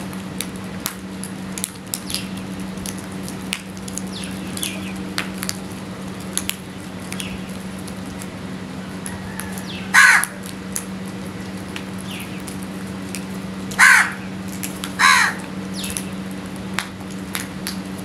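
House crows cawing: three loud caws, one about ten seconds in and two close together near fourteen and fifteen seconds, over scattered light taps of beaks pecking grain on concrete and faint short bird calls. A steady low hum runs underneath.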